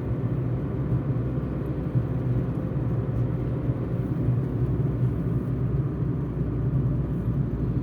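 Car travelling at a steady speed: an even, low engine and tyre rumble with a faint steady hum.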